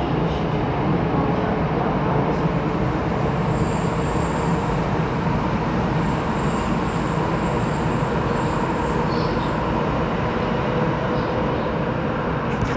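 Bombardier C951 train heard from inside the car: a steady running rumble, with a faint high-pitched wheel squeal from about four to nine seconds in.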